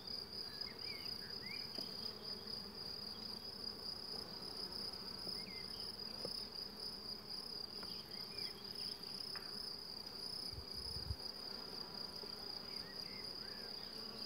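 A steady, high-pitched insect trill over the low hum of honeybees from an open hive.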